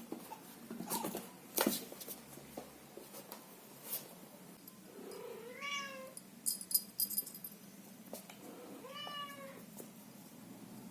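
Scottish Fold kitten meowing twice, two short calls a few seconds apart, among scattered light taps and clicks.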